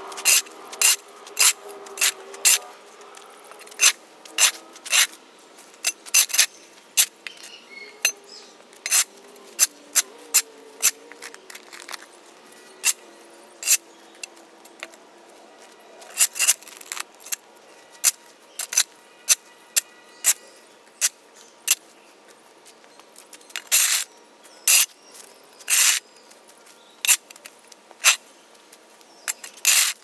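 A shovel blade repeatedly chopping into thick matted dirt and grass and scraping the concrete court beneath it. The sharp strikes come irregularly, roughly one or two a second.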